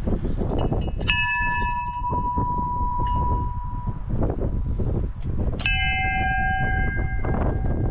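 A bell struck twice, about a second in and again past the middle, each strike ringing on for a couple of seconds, the second lower in pitch. Heavy wind buffets the microphone throughout.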